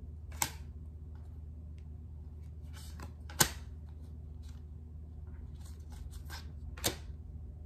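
Tarot cards being handled on a table: three sharp snaps about three and a half seconds apart, with soft card rustling between them, over a steady low hum.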